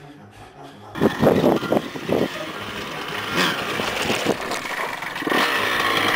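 Single-cylinder two-stroke engine of a Honda CR125R motocross bike revving hard while it is ridden through dirt-track turns, starting suddenly about a second in and rising and falling in pitch as the throttle is worked.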